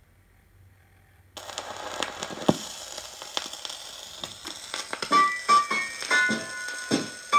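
A 78 rpm shellac record starting to play on a portable Philips turntable. After a moment of near silence, surface hiss and crackle with scattered clicks start suddenly as the needle runs in. About five seconds in, the record's instrumental intro of piano and harmonica begins.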